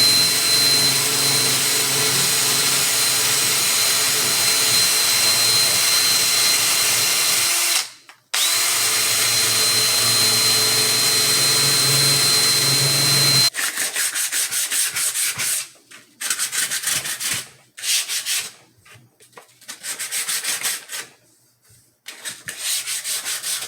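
High-speed rotary grinding tool grinding out a rifle stock's barrel channel for free-floating, running with a steady high whine; it stops about eight seconds in, spins back up and runs until just past halfway. After that come several short rubbing, scraping passes with pauses between them.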